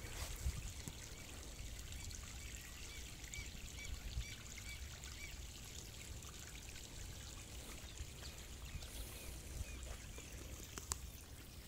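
Faint trickle of a small flow of rainwater runoff, steady and low.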